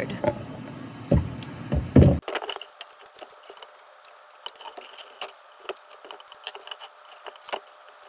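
Knocks and rattles of a water source heat pump's sheet-metal access panel being worked loose by hand: a few loud knocks in the first two seconds, then scattered light clicks and taps.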